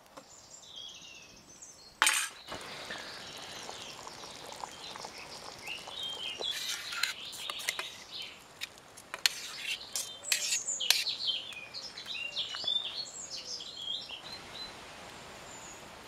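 Woodland birds chirping and singing, mixed with light metallic clinks and scrapes of a spoon against a steel pot and camp plate as stew is served out. A single sharp clank about two seconds in is the loudest sound.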